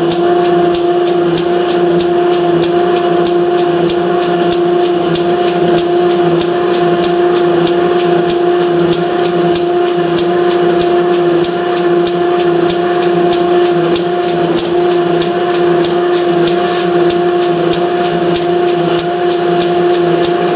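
Steptoe 14-inch metal shaper running, squaring up a steel block: a steady whine from its motor and drive, with a regular clicking as the ram strokes back and forth.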